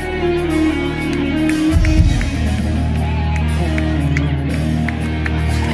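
Live rock band music over the stage PA, with electric guitar and bass holding sustained notes.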